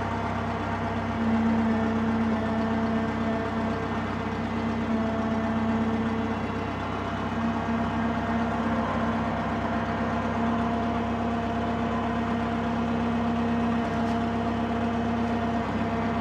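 Drott 85RM2 crane's engine running steadily with a constant whine while the crane swings a load.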